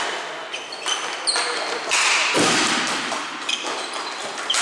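Ball hockey play echoing in a large hall: sticks and the ball knocking sharply on the floor several times, with players calling out.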